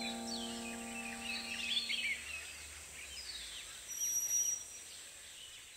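Background ambience of birds chirping and twittering, with a held low tone fading out over the first two seconds. A short high whistle comes about four seconds in.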